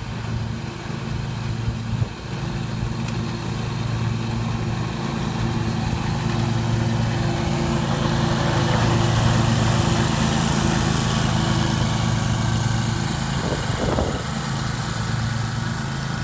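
Scag Tiger Cat II zero-turn mower's engine running steadily while mowing a stripe, growing louder as it comes closer, loudest about midway, then easing a little.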